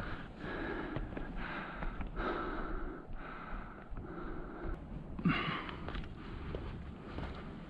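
A climber's breathing close to the microphone while moving up granite slab, in and out about once a second, with one louder, sharper breath about five seconds in.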